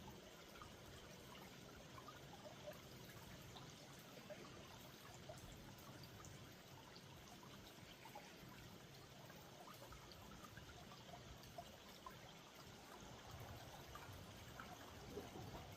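A small mountain stream trickling and babbling steadily, faint, with many small splashes.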